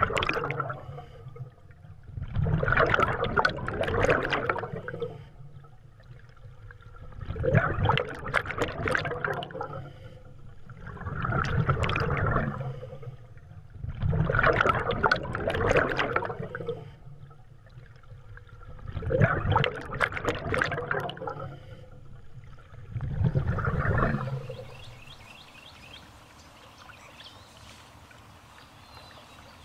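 Scuba diver breathing underwater: the regulator exhausts a rush of bubbles seven times, each lasting two to three seconds, about every four seconds. Near the end the breathing stops, leaving a faint steady hiss.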